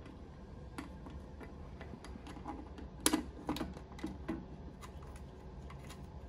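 Scattered small metal clicks and taps as a bolt is threaded by hand up through a slot in a steel L bracket into the underside of a stainless controller housing. They come at irregular times, and the sharpest click is about three seconds in.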